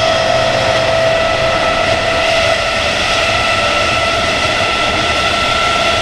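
Class 319 electric multiple unit 319425's traction motors whining at a nearly steady pitch, heard inside the carriage, over a constant low rumble of the running train.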